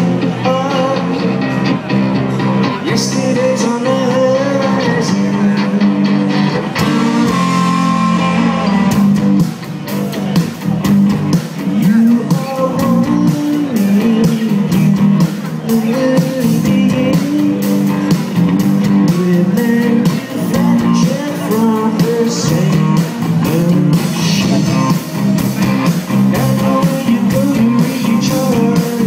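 Live rock band playing on a PA: electric guitars and drums with a man singing, heard from the crowd.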